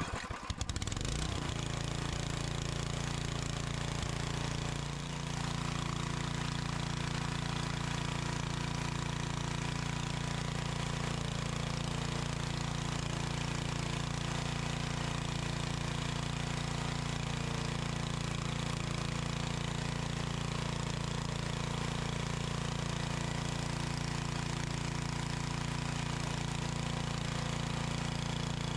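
Briggs & Stratton 8 HP I/C single-cylinder engine on a log splitter, pull-started and catching at once, then running steadily at speed on its newly installed carburetor and fuel pump, the mixture screw set 1.5 turns out. The level dips briefly about five seconds in, then holds steady.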